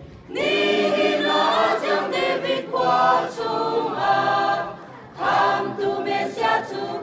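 Mixed choir of men's and women's voices singing a Christmas song a cappella in parts, in phrases with brief pauses between them.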